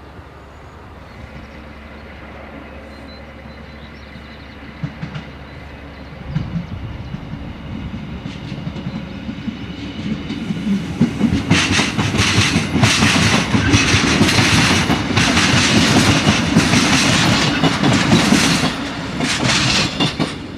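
DB Class 628 diesel railcar running over points and crossings. A low engine drone builds, then in the second half a dense, irregular rattling clatter, which eases just before the end. This clatter over switches and diamond crossings is characteristic of the 628 and sounds as if parts were coming loose, though nothing is.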